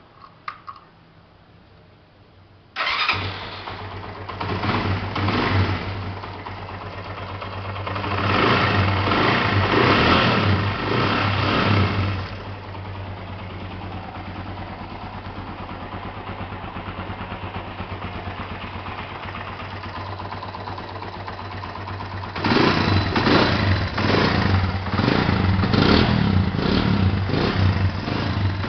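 Honda NX 200's single-cylinder engine: a couple of clicks, then it starts suddenly about three seconds in. It is revved twice, idles steadily for about ten seconds, then is blipped in quick repeated revs near the end.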